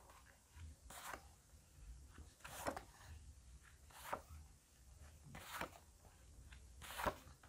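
Tarot cards being dealt one by one onto a tabletop: five faint swishes of card sliding on the surface, about one every second and a half.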